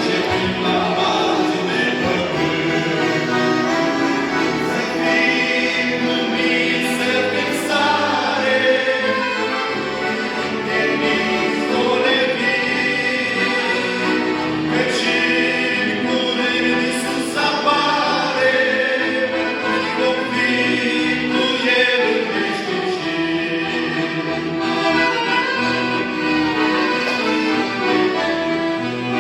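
Choir of young people singing a Christian hymn of praise.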